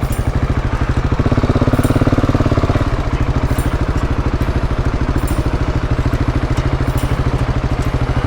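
KTM 690's single-cylinder engine running at low revs with a steady, even pulse. It picks up briefly about a second in, then settles back before three seconds.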